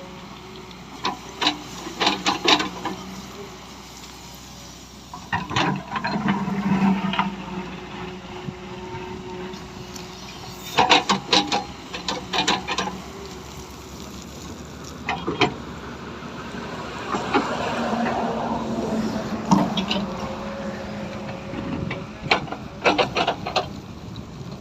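Tata Hitachi hydraulic excavator's diesel engine running steadily, with several groups of sharp metallic clanks and knocks from the working machine. For a few seconds past the middle the engine sound swells louder.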